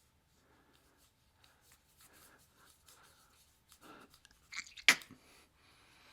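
Faint rustling and small handling noises, with a sharp click about five seconds in.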